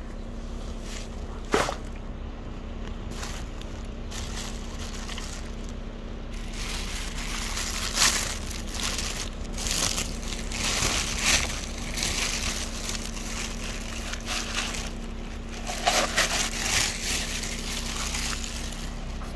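Irregular crackling and rustling, thickest through the middle of the stretch, with a sharp click near the start, over a steady low hum.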